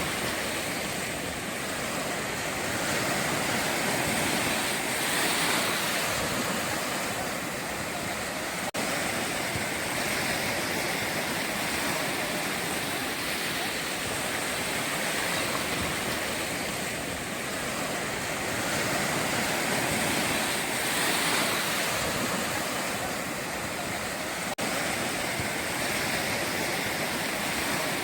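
Ocean surf breaking on the shore: a steady rushing wash that swells and eases every few seconds.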